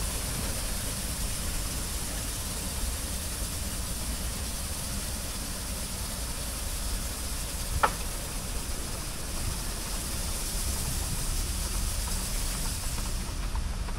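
Automatic rollover car wash gantry running over a car: a steady hiss of water spray over a low machinery rumble. A short sharp squeak comes about eight seconds in. The spray hiss cuts off shortly before the end.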